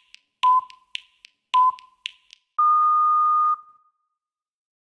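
Electronic interval-timer beeps counting down the end of a workout interval: two short beeps about a second apart, then one longer, slightly higher beep. Light quick ticks come between the short beeps.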